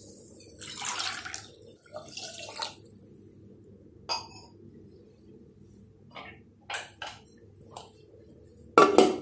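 Water poured into an aluminium pressure cooker over soaked pearl millet, splashing twice in the first few seconds. A few light clinks follow, then a louder clatter of the pot near the end.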